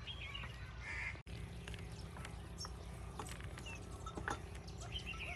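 Birds calling in short bursts over a steady low background hum, with scattered sharp clicks and knocks.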